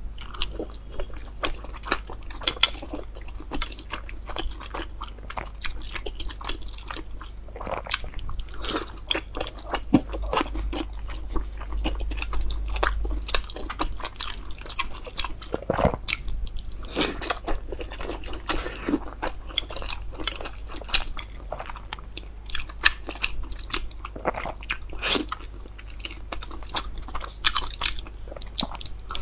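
A person eating soup dumplings, close-miked: biting into the soft dumplings and chewing, with many short, irregular wet mouth clicks and smacks.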